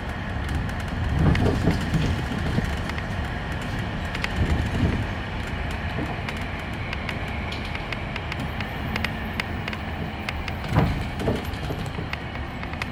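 Inside a moving city bus: steady engine and road rumble with frequent small clicks and rattles, and a few louder bumps, about a second in, around five seconds and near eleven seconds.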